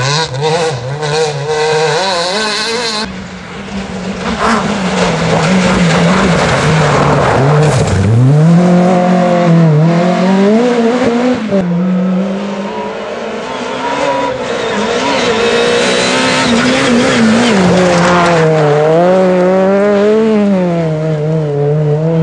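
Rally cars at full speed, one after another. Their engines rise and fall in pitch again and again as the drivers accelerate, lift and change gear, with tyre noise on the loose surface.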